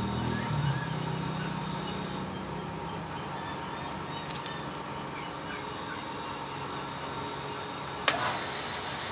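Low steady hum and hiss around a homemade cylinder-honing machine while its head is set up by hand, then a sharp click about eight seconds in as the machine's drive is switched on.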